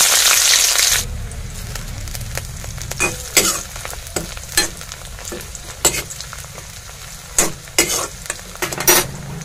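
Sliced onions frying in ghee in a karahi (wok), with a loud burst of sizzling in the first second, then steady sizzling. A metal spatula stirs them, clacking sharply against the wok several times.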